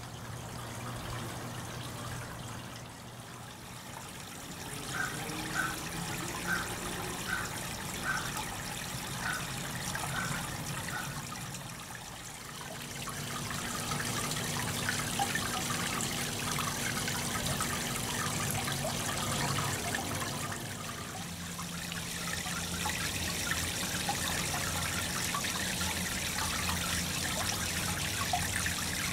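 Water fountain spraying through a soft-spray hose nozzle and falling back into a plastic basin: a steady splashing patter, louder from about halfway through.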